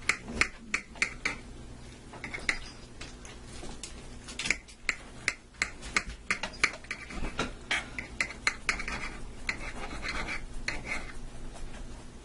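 A knife slicing through slow-cooked roast beef on a cutting board: repeated sawing and scraping strokes with sharp clicks of the blade against the board, the scraping strokes coming thicker about two-thirds of the way through.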